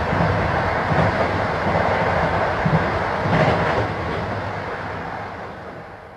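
Train running on the rails: a steady rumble with a few knocks of the wheels over rail joints, fading away near the end.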